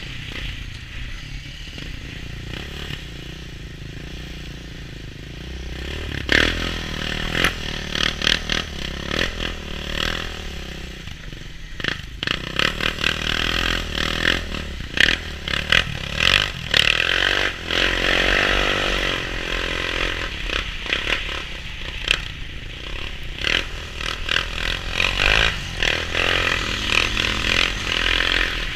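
A utility ATV's engine runs steadily at trail speed, its pitch swelling and falling once with the throttle partway through. Frequent rattles and knocks come from the quad's racks and body as it jolts over the snowy trail.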